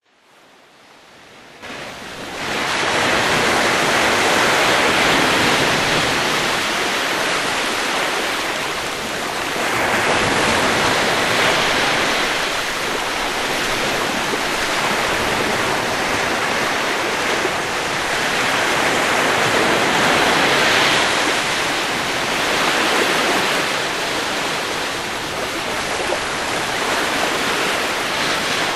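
Sea waves breaking and washing ashore: a steady rushing surf that swells and eases every several seconds, fading in over the first couple of seconds.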